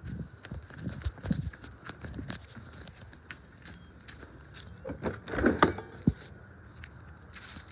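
Handling noise from a phone being swung about: scattered clicks and rustles, with a louder rustling burst about five seconds in and a sharp click just after.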